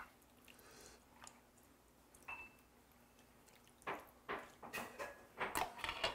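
An orange ladle scooping cold doenjang broth with fish and vegetables from a stainless steel bowl and pouring it into a white bowl: a faint clink a couple of seconds in, then a run of wet splashes and drips in the second half.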